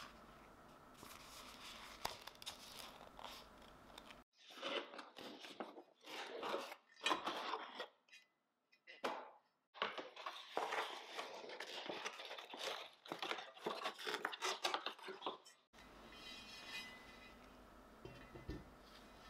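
Cardboard box and packaging being opened and handled: about eleven seconds of irregular crinkling, tearing rustle in many short bursts, with quiet room tone before and after.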